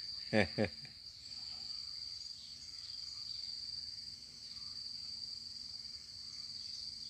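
Insects trilling steadily on one high pitch, unbroken, with a man's voice saying a short word about half a second in.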